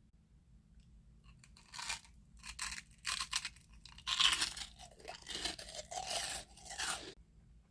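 Freeze-dried gummy worm candy being bitten and chewed close to the microphone: a run of crisp crunches that starts about two seconds in and stops shortly before the end.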